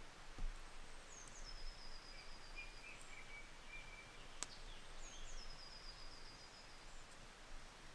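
Quiet woodland ambience with a small songbird singing twice: each phrase is a high, thin trill of rapid repeated notes, about a second and a half long. A fainter, lower trill comes between the two phrases, and there is a single sharp click about four and a half seconds in.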